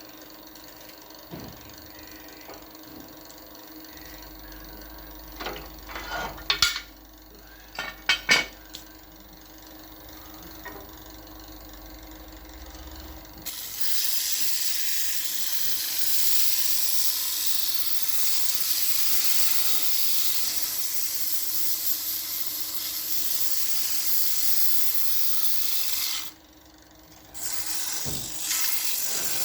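Sandpaper held against a turned wood plate spinning on a Powermatic PM2014 lathe: a steady sanding hiss that sets in about halfway through, drops out for about a second near the end, then resumes. Before it, only a faint steady hum with a few sharp knocks.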